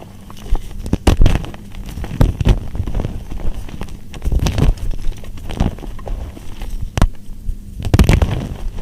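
Soap being crushed: a run of irregular crunchy cracks and crackles at uneven spacing, the loudest about a second in and again near the end.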